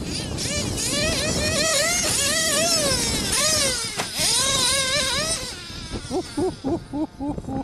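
Modified JL21 nitro two-stroke engine of an OFNA Hyper 10SC RC short course truck, revving up and down again and again under throttle. In the last second or two it drops to lower, quieter short throttle blips.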